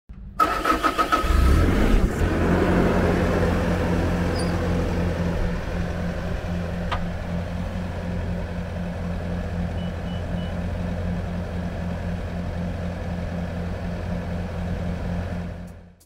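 The 46 hp Tier 4 diesel engine of a Bobcat S530 skid steer loader cranks briefly and catches about two seconds in. It then settles into a steady run.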